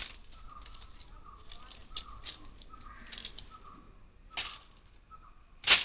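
Birds chirping: a few short, sharp calls at irregular intervals, the loudest near the end, over a faint, repeated lower call.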